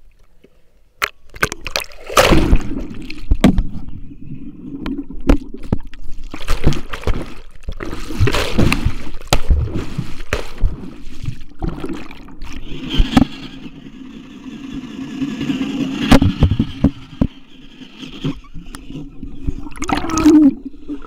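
Water splashing and gurgling close to the microphone, in irregular surges, with sharp knocks and rubbing from the camera being thrashed about.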